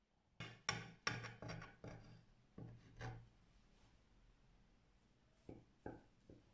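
A kitchen knife slicing a soufflé cheesecake into wedges, the blade scraping and clicking on the glass cutting board beneath. A quick run of scrapes and clicks fills the first three seconds, then a few soft knocks come near the end.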